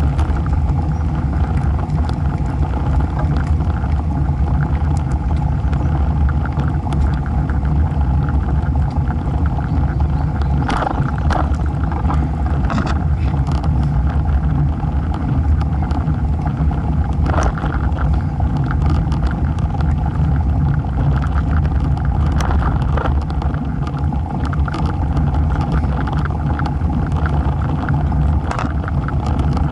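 Steady wind rumble on a bicycle-mounted camera's microphone mixed with the road bike's tyre noise on asphalt while riding, with a few short sharp clicks scattered through.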